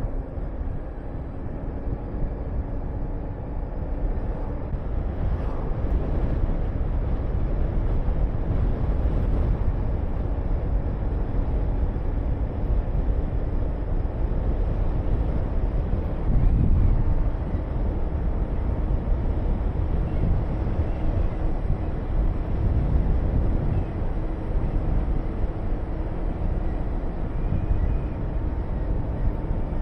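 Honda VTR250's V-twin engine running at riding speed under heavy wind noise on the action-camera microphone, the wind briefly louder about halfway through.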